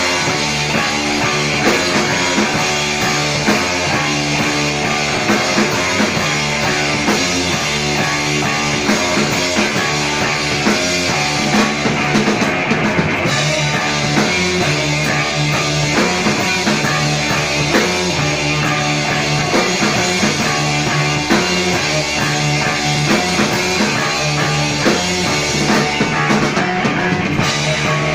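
Live rock band playing: distorted electric guitar and a drum kit keeping a steady beat.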